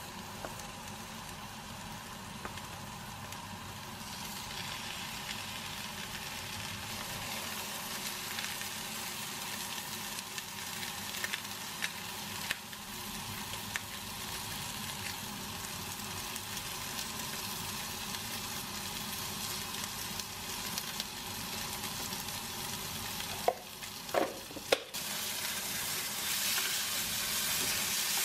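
Thick slabs of pork belly sizzling in a nonstick frying pan, the sizzle growing stronger as the fat heats, with scattered small crackles. A few sharp clicks come about three-quarters of the way through.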